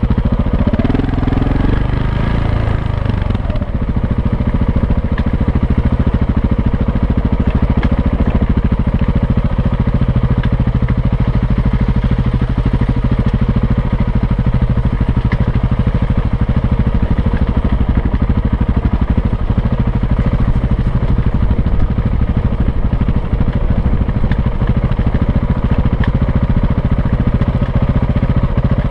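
Off-road motorcycle engine running steadily at low speed in a low gear; the engine note shifts up and down in the first few seconds, then holds an even drone.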